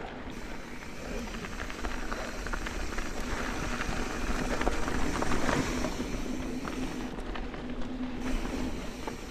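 Mountain bike riding over a rough dirt trail: tyres crunching and bike parts rattling over stones and bumps, dense with small clicks. A steady hum runs through most of it, and it grows louder around the middle.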